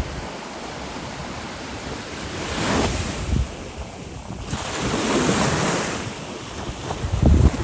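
Sea waves breaking and washing ashore, surging twice about three and five seconds in, with wind buffeting the microphone in low gusts, loudest near the end.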